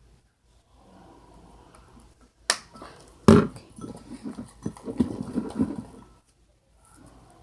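Two sharp clicks about a second apart, followed by a couple of seconds of irregular handling noise, like hands working with containers and materials on a table.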